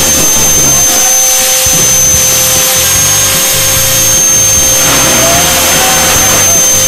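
A 110 mm, 6.5 hp electric ducted fan on a 12S battery running steadily at high power: a loud, even rush of air with a steady high-pitched whine from the fan.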